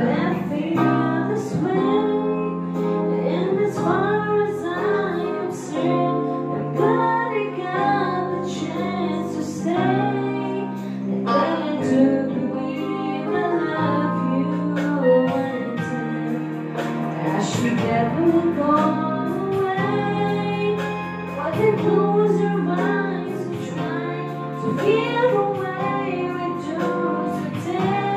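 A woman singing a slow song with vibrato over a backing track of long held chords and bass.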